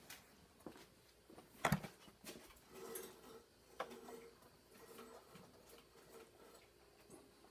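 Faint clicks and light knocks of a Harley-Davidson Electra Glide's outer fairing and headlight plug being handled as the fairing is unplugged and pulled off, with one sharper click about two seconds in.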